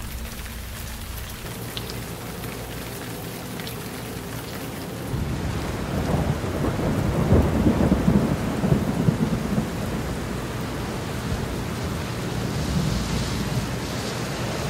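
Thunderstorm: steady rain with a long, low roll of thunder that builds about five seconds in, is loudest around the middle, then dies back into the rain.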